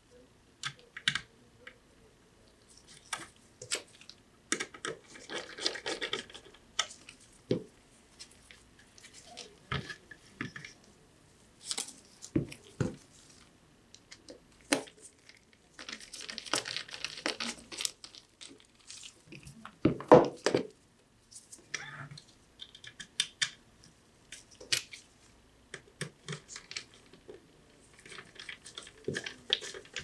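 Small screws being turned into a metal drive adapter bracket with a precision screwdriver: scratchy turning and rasping noise in short spells, with clicks and taps as the parts are handled. A louder knock comes about two-thirds of the way through.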